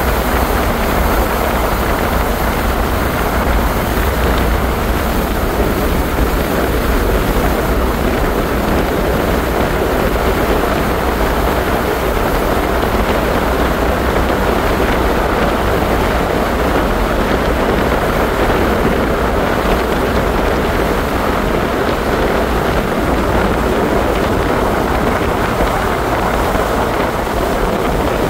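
Regal motorboat running at speed: a steady, loud mix of engine, rushing water from the wake and heavy wind buffeting the microphone.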